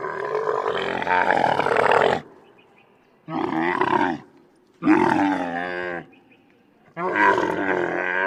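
Wild Bactrian camel calling: four loud, pitched, wavering calls in a row, the first lasting about two seconds and the next three about a second each, with short pauses between them.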